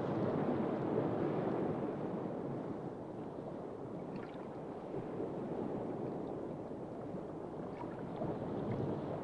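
Steady underwater wash of moving water, with a few faint clicks about four seconds in and again near the end.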